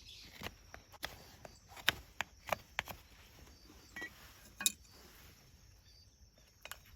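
A branch being worked by hand into a wooden handle for a small iron grill plate: irregular short scrapes and clicks of a knife on wood and of the handle being handled and test-fitted. There are loosest clusters about two to three seconds in and again around four to five seconds.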